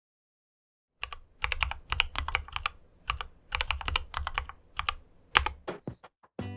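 Typing on a Space65 custom mechanical keyboard with lubed Tealios V2 linear switches, a carbon fibre plate, an aluminium case and PBT MT3 keycaps: quick bursts of keystrokes with short pauses between, starting about a second in.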